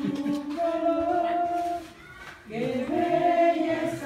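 Voices singing a Spanish hymn to the Virgin Mary in long held notes, breaking off briefly about two seconds in before the next line begins.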